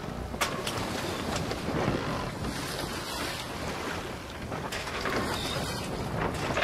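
Wind buffeting the microphone over the wash of open water, with a few sharp knocks, the clearest just under half a second in.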